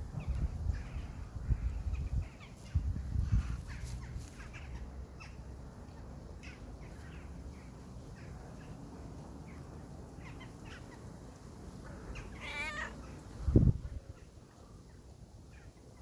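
Crows cawing, many short calls scattered throughout, with a low rumble in the first few seconds. Shortly before the end there is a wavering, warbling call, followed by a single low thump that is the loudest sound.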